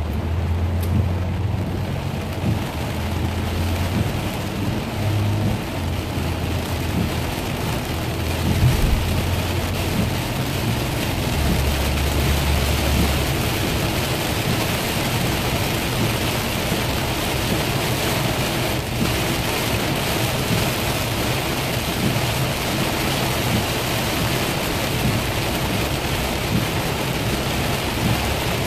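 Heavy rain pelting a car's windshield and roof, heard from inside the moving car, over a low steady drone from the car on the wet road.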